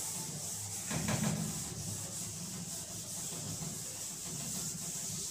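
A chalkboard duster rubbing across a blackboard, wiping chalk off.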